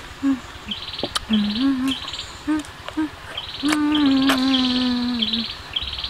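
A woman humming "mmm" with her mouth closed while eating a wild fruit: several short hums, then one long held hum a little past halfway. Insects chirp in quick pulsing bouts behind it, with a few sharp clicks.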